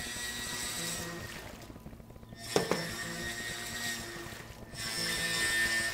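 Nikko Aqua Dodger RC boat's small electric motor whining, cutting out twice for about a second each. One sharp click about halfway through is the loudest sound. Music with repeating notes plays underneath.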